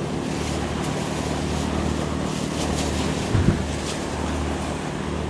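Surf washing on shore rocks with wind buffeting the microphone, under a steady low rumble; a clear plastic bag crinkles now and then as it is handled, and something knocks once about three and a half seconds in.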